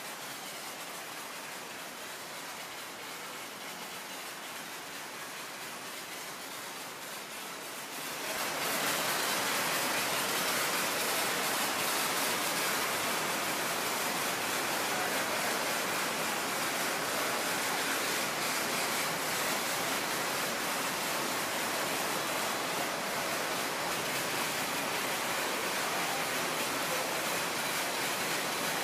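Steady hiss of water spraying from a robotic wash arm's nozzle onto an F-16's skin, growing louder about eight seconds in.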